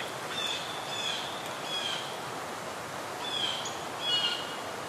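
Small birds chirping: short, high chirps with a slight downward slide, repeating irregularly about every half second to a second over a steady background hiss.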